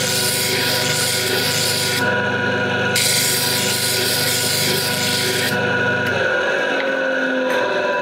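Bench disc sander running, with a metal exhaust pipe segment pressed against the abrasive disc twice, for about two seconds each time, to grind its joint face flat so it sits flush. About six seconds in, the motor is switched off and winds down with a falling pitch.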